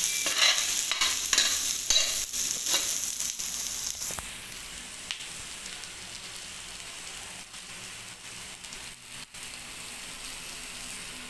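Chopped garlic, onion, ginger and green chilies sizzling in a little oil in a nonstick frying pan, with a spoon scraping and stirring them about twice a second. The stirring stops about four seconds in, and the sizzle goes on alone, quieter.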